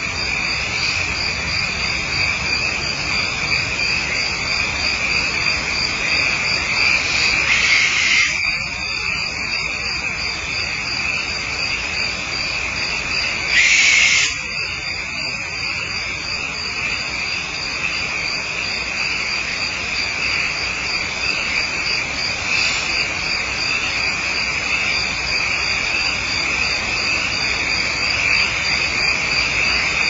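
Crickets chirring steadily in a night chorus, with a faster pulsing trill higher up. Twice, about 8 and 14 seconds in, a harsh owl screech of about a second cuts over them, the second one louder.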